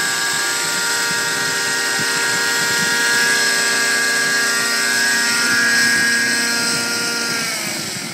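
Raptor 90 nitro RC helicopter running steadily with a high whine from its glow engine and rotors. Near the end the pitch falls and it quietens as the helicopter settles onto the grass and is throttled down.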